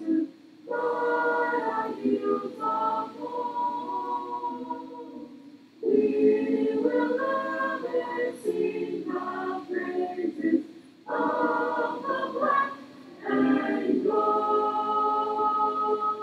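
A group of voices singing the school alma mater together, in sung phrases separated by short pauses.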